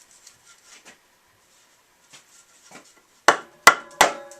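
Light handling and rubbing of wood, then three sharp knocks in quick succession near the end, each leaving a brief ringing tone.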